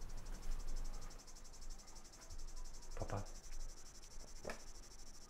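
A cricket chirping steadily in a fast, even pulsing trill, with two short louder noises about three and four and a half seconds in.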